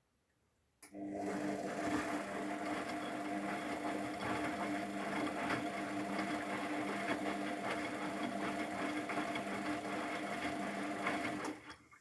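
Luxor WM 1042 front-loading washing machine's drum motor starting suddenly about a second in and running steadily with a hum and a hiss, turning the drum of wet laundry during the softener rinse, then cutting out near the end.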